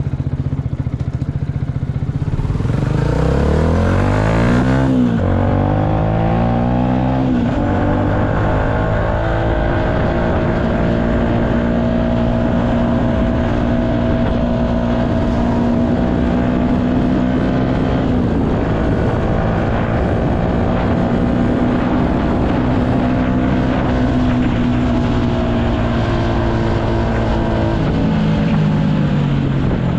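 Yamaha MT-125's 125 cc single-cylinder four-stroke engine under way: it rises in pitch while accelerating, drops once about five seconds in at a gear change, and rises again. It then holds a steady cruising pitch and eases off near the end.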